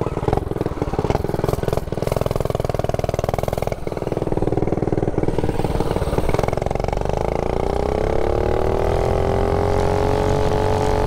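Mega Moto mini bike's small single-cylinder engine with a stage one exhaust, running under throttle while being ridden. After a brief dip about four seconds in, the engine note rises steadily as the bike speeds up, then holds.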